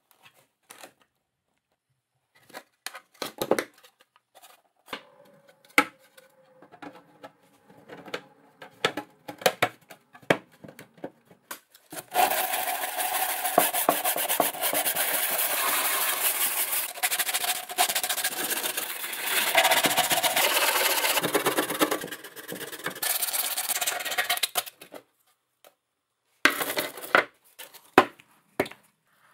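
Sanding by hand: scattered handling clicks and taps, then about a dozen seconds of continuous scraping, then a few more knocks near the end.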